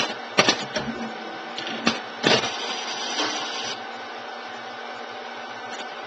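Laboratory automation workcell of plate stacker and pipettor running: a steady machine hum, a few sharp mechanical clicks and clunks in the first two and a half seconds, and a short motor whir that stops about three and a half seconds in.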